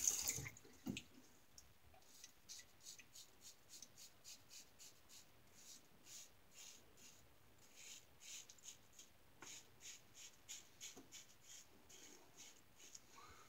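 GE Jones Shake Sharp MK2 safety razor with two stacked Wizamet blades scraping through lathered stubble in short, quick strokes, about two a second with brief pauses; faint.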